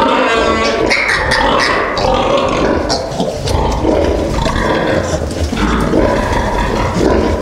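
Pigs squealing and grunting in a continuous loud din, with a high drawn-out squeal in the first second.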